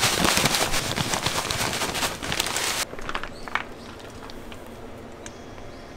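Dry white crumbs poured from a bag onto tuna in a plastic container: a dense rustling hiss that stops about three seconds in. A few faint clicks and soft handling noises follow as mayonnaise is squeezed in from a squeeze bag.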